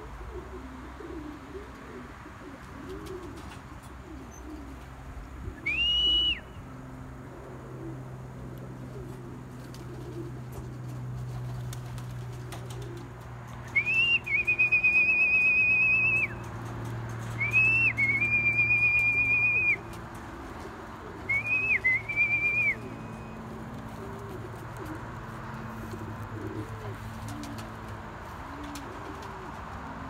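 Racing pigeons cooing low and continuously around the loft. Over them come four loud, high whistles, each rising then held: a short one about six seconds in, then three close together in the second half, the longest about two seconds.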